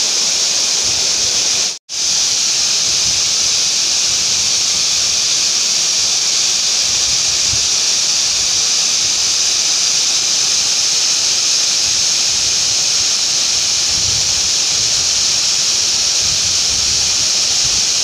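A tall waterfall pouring into its plunge pool: a steady, loud rush of falling water that cuts out for an instant about two seconds in. Low gusts of wind buffet the microphone now and then in the second half.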